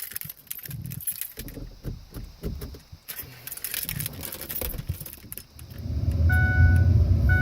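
Keys and small parts rattling and clicking, then about six seconds in a vehicle engine starts and runs with a steady low rumble while a high electronic warning chime beeps repeatedly.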